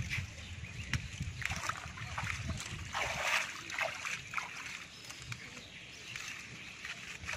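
Hands splashing and sloshing in shallow muddy water, with a run of irregular splashes in the first half, loudest about three seconds in, then fainter sloshing.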